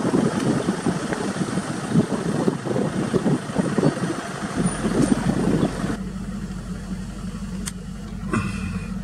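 Vehicle engine running with an uneven rumble, turning to a steady idling hum after about six seconds. A click and a brief higher sound come near the end.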